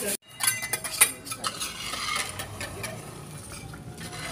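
Debris being cleared from the ground: hard scraps clinking and scraping together, with a sharp clatter about a second in and lighter scratchy scraping after.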